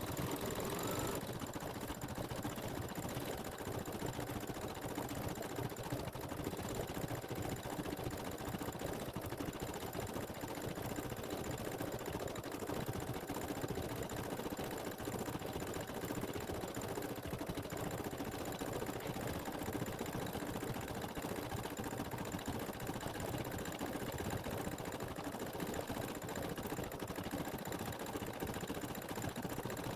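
Embroidery machine stitching out a design, its needle running in a fast, even stream of strokes.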